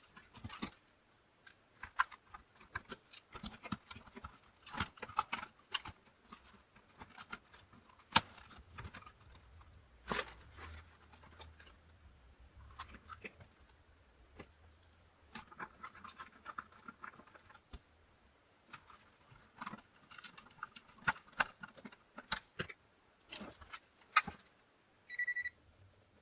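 Irregular clicks, knocks and clatter of plastic and metal parts being handled as a Commodore 64 is put back together in its case. A short high beep sounds near the end.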